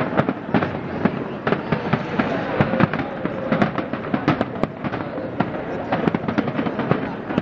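Fireworks display: many bangs and crackles in quick, irregular succession, with crowd voices underneath.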